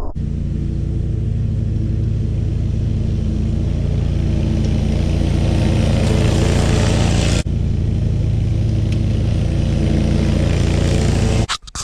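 Hustler X-One zero-turn mower's engine running steadily while it cuts tall pasture grass. There is a momentary dropout about seven seconds in, and the sound cuts off suddenly near the end.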